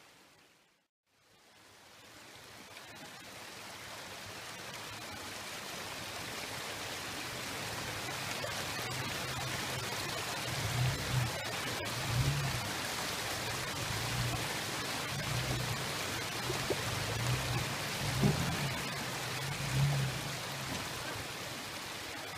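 Steady rush of a shallow rocky creek, fading in after a brief dropout near the start. From about ten seconds in, low uneven surges from the Toyota FJ Cruiser's 4.0-litre V6 as it crawls over the rocks.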